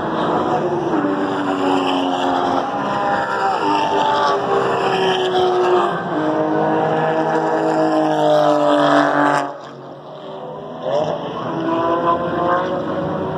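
Race car engines at high revs on a road circuit, the pitch sliding up and down as the cars pass. The sound drops off sharply about nine and a half seconds in, then another engine rises again a little later.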